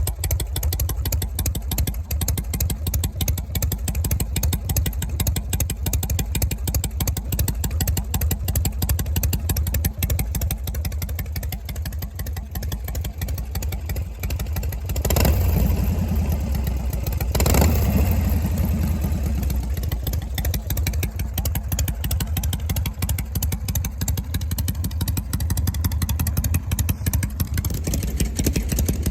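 Harley-Davidson Shovelhead V-twin running with a deep exhaust note through a muffler fitted with a new inner silencer. The engine note swells louder twice, about halfway through.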